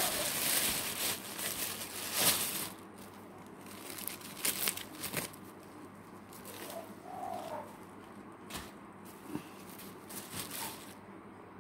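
Rustling and crinkling as vegetables and leaves are handled, loudest and most continuous during the first two seconds or so, then broken into scattered short rustles and light knocks.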